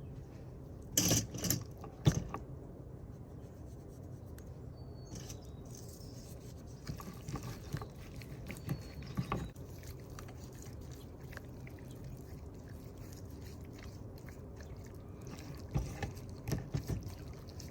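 Kitchen handling noises while seasoning raw chicken: a few short knocks and scrapes over a steady low hum. The knocks come in small clusters, about a second in, around eight to nine seconds in, and again near the end.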